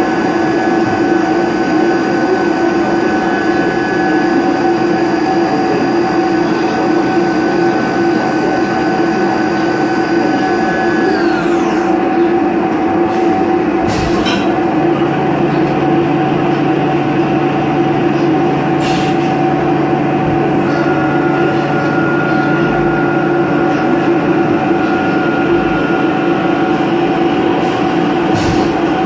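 XYZ 560HD CNC milling machine with a high-pitched spindle whine over a constant machine hum. The whine winds down with a falling pitch about twelve seconds in. Brief sharp noises follow at about 14, 19 and 28 seconds as the tool change goes on, and a new steady whine starts about two-thirds of the way through.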